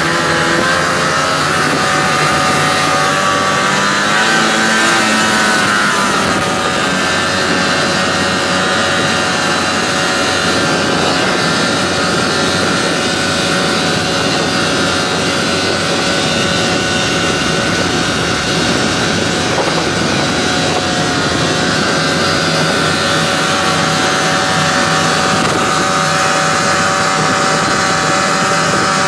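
Vintage two-stroke snowmobile engines running steadily at speed, the pitch wavering up and down briefly about four seconds in.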